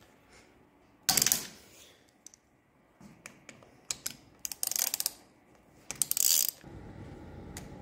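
Hand ratchet clicking as it is swung back and forth to loosen a bolt on a motorcycle's handlebar controls, in three short bursts of rapid clicks. A steady low rushing noise comes in near the end.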